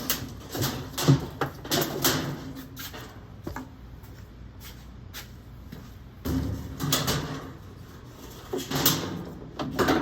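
Clicks, knocks and rattles of a washing machine's metal suspension rods and tub parts being handled as the rods are unhooked from the corners. They come in three bunches, with a quieter gap in the middle.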